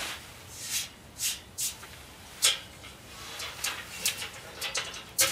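A series of short scraping and rustling noises, about eight of them, the loudest about two and a half seconds in, as hands work the steel door and sliding front plates of a small TMS 45 tent wood stove.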